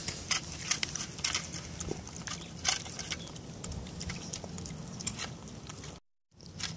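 A puppy eating wet dog food from a foil tray: irregular wet smacking and chewing of its mouth, several small clicks a second. The sound drops out for a moment near the end.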